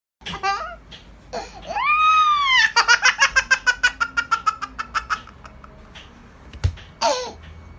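A young child's high drawn-out squeal, then a fast run of giggles, several a second, that trails off. A short sharp click follows near the end, with another brief vocal sound.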